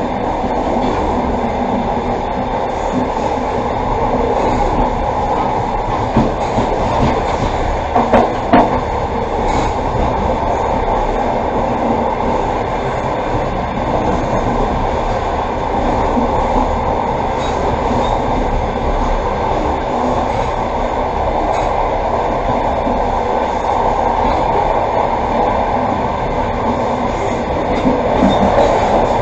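Passenger train carriage rolling along the track: a steady running rumble of wheels on rail, with a few sharp knocks about six to nine seconds in.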